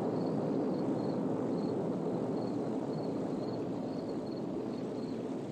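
Steady, dense rumbling drone of a spaceship's engines as a film sound effect, with faint short high chirps repeating about twice a second.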